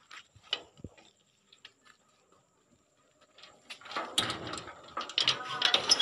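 A metal grille gate rattling and clanking as it is handled and opened: a few faint clicks at first, then a burst of clattering knocks from about four seconds in.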